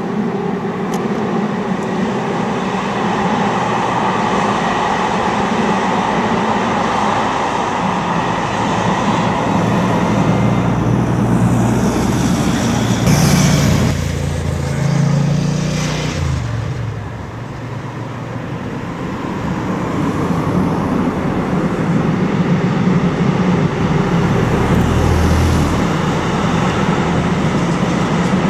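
TER passenger train of Corail reversible coaches with a BB 22200-class electric locomotive running along the line and drawing near, its noise swelling toward the end. About halfway through, a road vehicle passes close with falling pitch and is the loudest thing heard.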